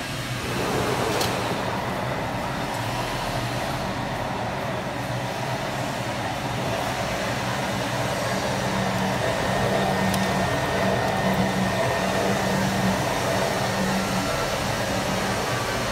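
DL-6CRT-35 tea rolling machine running, kneading a batch of fresh tea leaves: a steady electric motor hum with the rushing, rubbing noise of the drum and leaves working over the rolling table, a little louder from about a second in.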